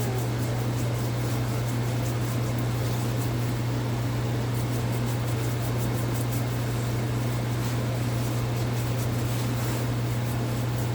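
Steady low machine hum with an even hiss behind it, like a running fan motor, unchanging throughout.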